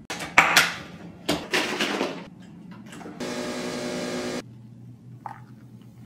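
Home coffee machine at work: two loud, rough bursts of noise in the first two seconds, then a steady motor buzz for about a second.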